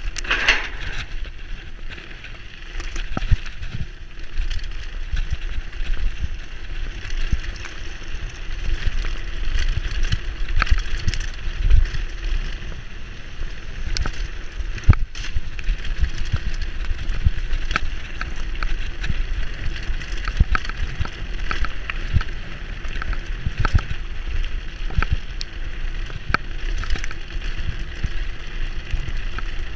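Specialized Enduro mountain bike rolling fast down a gravel track: tyres rumbling over the stones, with frequent knocks and rattles from the bike as it hits bumps. Wind rumbles on the camera microphone throughout.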